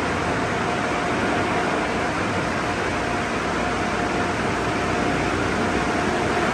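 Car-wash dryer blowers (overhead producers of the drying system) running, a steady rush of air with a faint constant whine.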